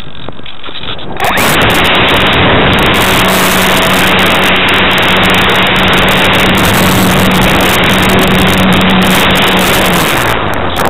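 Electric motor and propeller of a Parkzone Radian Pro glider heard on board. The motor comes on about a second in and runs at one steady pitch under a loud rush of air, then cuts off near the end.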